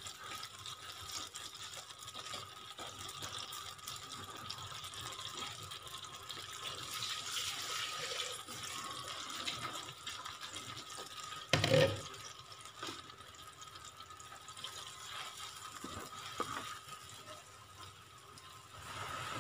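Blended chilli, shallot, garlic and turmeric paste frying in hot oil in a wok, a steady sizzling hiss as it is sautéed until fragrant. A single sharp knock sounds about twelve seconds in.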